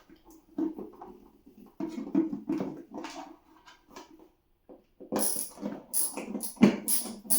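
Phillips screwdriver backing screws out of a refrigerator's plastic dispenser panel, with irregular short squeaks and scrapes and a run of sharp clicks about five seconds in.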